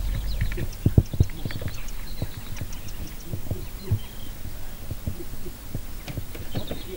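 Irregular dull low thumps, two or three a second, with faint high chirps from small birds.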